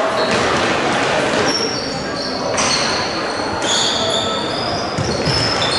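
Indoor hockey play in a sports hall: shoes squeak again and again on the hall floor, in short high squeals, over echoing voices of players and spectators.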